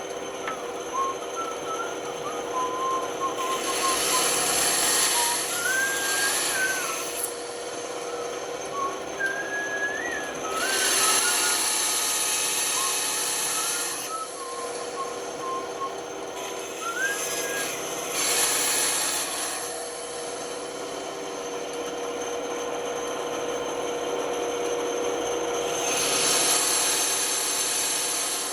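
Sandpaper rubbing on wood in several spells of a few seconds each, with pauses between.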